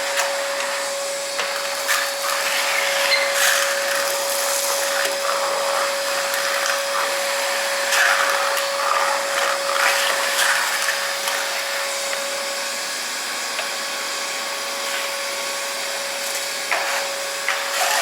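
Milwaukee M18 Fuel 6-gallon cordless wet/dry vac running on high with a steady whine, with irregular rattles and clicks as leaves and floor debris are sucked up the hose.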